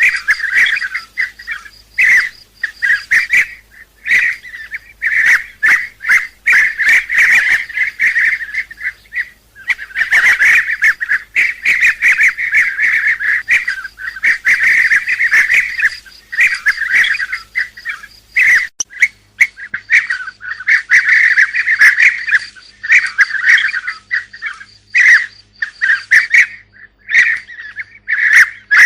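Bee-eater flock calling: many short, rolling chirps overlapping in quick runs, broken by brief pauses. It is a recorded lure call played to draw bee-eaters in for hunting.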